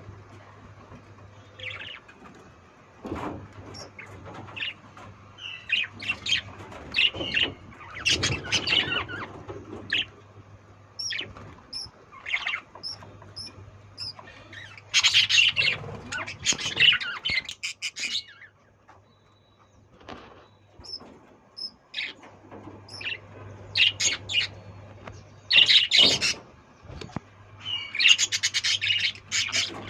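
Lovebirds chattering in a colony: bursts of rapid high chirps and squawks from several birds, with quieter gaps between.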